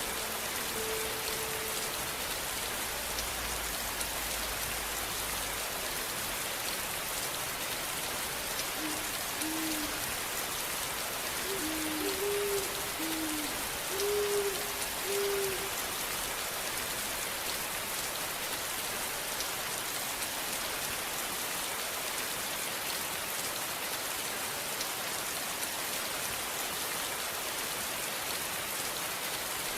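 Steady rain falling. About a third of the way in, a series of about eight short, low hooting calls is heard over it.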